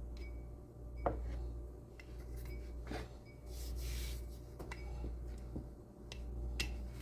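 Biscuit dough being rolled out flat on a counter: a low rumble that swells and fades every two to three seconds, with a few light clicks and taps and a short hiss about four seconds in.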